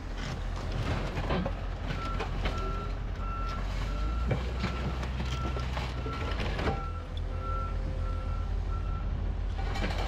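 A heavy vehicle's backup alarm beeping about one and a half times a second, over a steady low engine rumble, with a few sharp metallic knocks. The beeps start about two seconds in and stop near the end.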